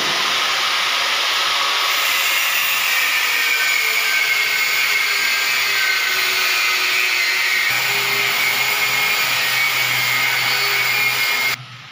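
Angle grinder with an abrasive disc cutting steel rod, running steadily with a high whine and cutting off abruptly shortly before the end.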